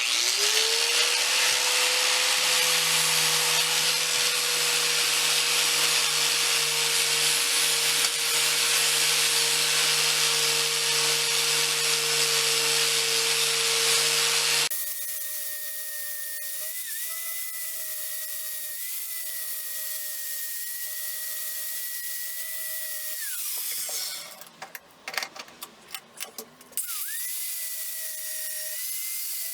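Angle grinder with a flap disc spinning up and grinding the pitted steel head of a hatchet, a steady motor whine under a loud hiss of abrasion. About halfway through the sound drops suddenly to a quieter, higher steady whine with little grinding noise, cuts out briefly near the end and resumes.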